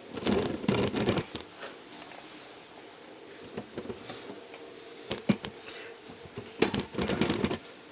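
Irregular light clicks and rattles in short clusters, the loudest near the start and again about a second before the end.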